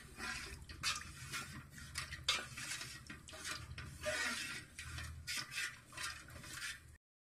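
Wooden spatula stirring thick rice-flake, jaggery and coconut-milk payasam in an aluminium pot, with irregular scrapes and knocks against the pot's sides and bottom. The sound cuts off abruptly near the end.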